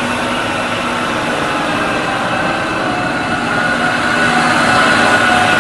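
Large forklift's engine running steadily as the machine drives with a loaded bin on its forks.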